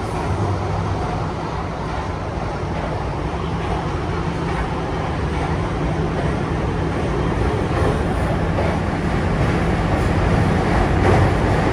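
Subway train running, heard from inside the passenger car: a steady rumble of running noise with a low hum, growing a little louder toward the end.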